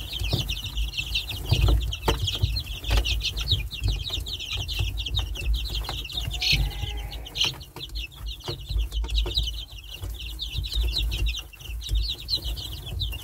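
A cage full of chicks peeping without a break, many quick high chirps overlapping, with scattered light taps and knocks.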